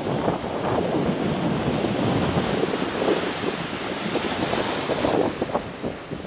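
Small waves washing up a sandy beach in a steady, uneven rush, with gusts of wind buffeting the microphone.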